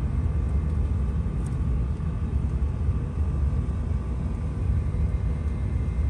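Low, steady background rumble with no bird calls.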